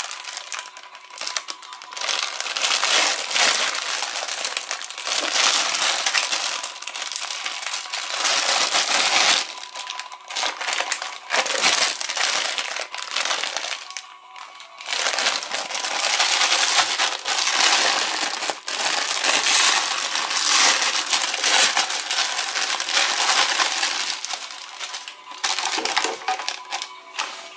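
Clear plastic wrapper crinkling and rustling in irregular surges with short pauses as it is handled and turned over.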